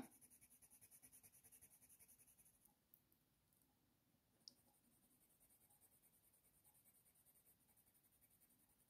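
Near silence: the faint scratch of a Faber-Castell Polychromos colour pencil (Warm Grey I) stroking lightly across watercolour paper, with one short high click about four and a half seconds in.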